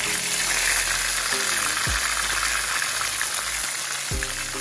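Whole fish frying in a pan of hot oil: a steady sizzle and crackle of bubbling oil.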